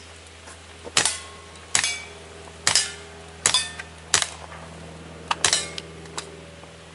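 A string of about six handgun shots fired at steel plate targets, spaced roughly a second or less apart, each a sharp crack, with brief ringing from the steel plates after some of the hits.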